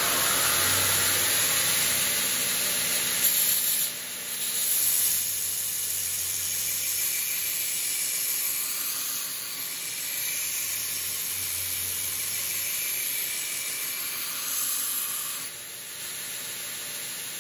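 Knife-grinding belt grinder running a worn abrasive belt slowed by its frequency drive to 21 Hz, with a steel blade held in a jig ground against it: a steady hissing grind that dips briefly a couple of times. At this reduced speed the worn belt still cuts the steel properly rather than burning it.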